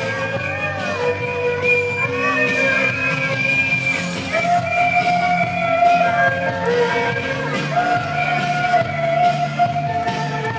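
Live band playing a rock song through a PA, with a melody line held on long, wavering notes over a steady accompaniment.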